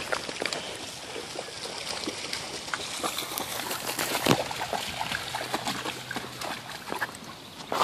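Two shepherd dogs wading in shallow river water over stones, their legs making small splashes and sloshing with many light ticks and patters.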